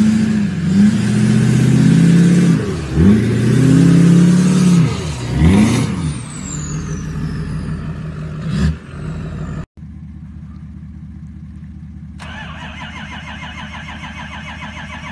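Lifted GM pickup's engine revving hard in swings as the truck pulls away through sand, with a high whistle falling away about six seconds in. Then, after a cut, a lifted older Ford pickup's engine idling steadily, joined about twelve seconds in by a rapid, high, repeating squealing chirp.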